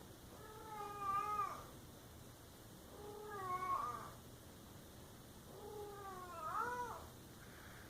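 Domestic cat yowling: three long, drawn-out meows about two seconds apart, the last one rising in pitch at its end.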